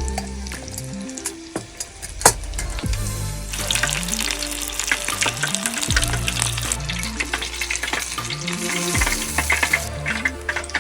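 Breaded oysters deep-frying in hot oil in an aluminium mess tin: a dense crackling sizzle that starts about three and a half seconds in, after a few sharp clicks, over background music.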